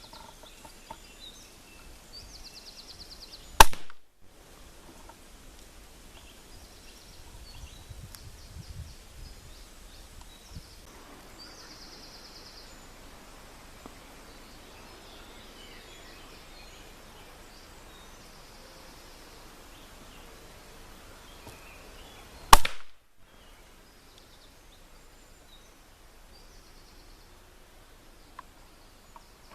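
.22 rimfire rifle fired twice, about nineteen seconds apart. Each shot is a single sharp crack with a short tail.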